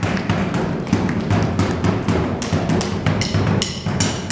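Bombo legüero, a large rope-laced Argentine bass drum, beaten with sticks together with the stamping of boots on a wooden stage floor: fast, rhythmic folk drumming and footwork made of many quick, sharp strikes over a deep pulsing thud.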